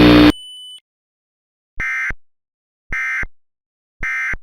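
A loud buzzing tone cuts off about a third of a second in, followed by three short bursts of EAS digital data warble about a second apart: the SAME end-of-message codes that close an Emergency Alert System broadcast.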